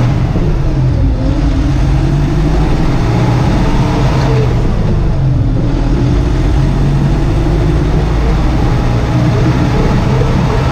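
Farmtrac 675 DTN tractor's 3.4-litre four-cylinder turbo diesel running steadily as the tractor drives along, with an even low engine note.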